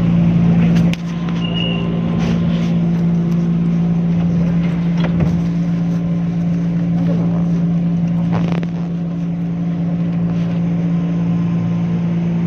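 A train standing at a station platform, its engine running with a steady low hum. A few scattered knocks and clicks come over it.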